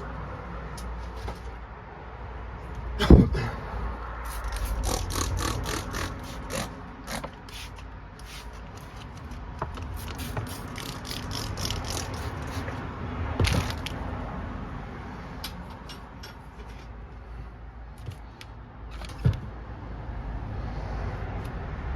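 Hands-on fitting work: quick runs of mechanical clicking and scraping, with a sharp knock about three seconds in and another near the end.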